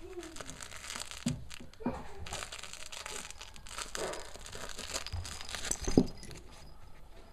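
Crinkle toys crinkling and rustling as spaniel puppies paw and tussle with them, with a few soft knocks and one louder thump about six seconds in.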